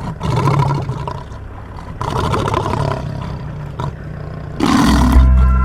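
A large animal roaring in a few long, deep calls, then music with a heavy bass coming in about 4.7 seconds in.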